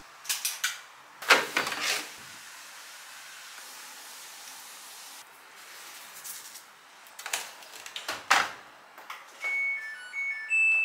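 Top-loading washing machine being loaded: a few knocks of handling, a soft hiss as detergent powder is poured into the drum, and a loud knock as the lid is shut about eight seconds in. Near the end the control panel gives short electronic beeps at two or three pitches as buttons are pressed.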